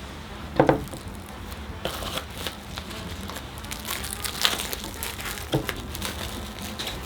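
Packaging being handled, crinkling, with scattered sharp clicks; the loudest is about half a second in.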